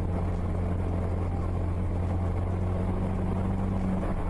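Steady low engine drone and road noise heard inside a vehicle's cab while driving on a snowy road, the pitch rising slightly near the end.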